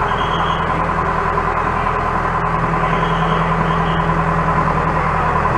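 Engine running steadily, a loud continuous drone that holds an even pitch.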